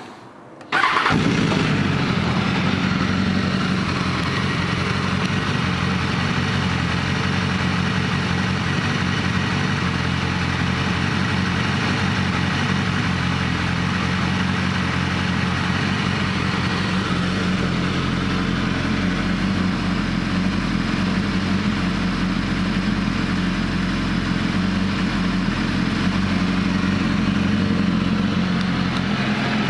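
BMW S1000RR inline-four sport-bike engine starting up about a second in, then settling into a steady idle.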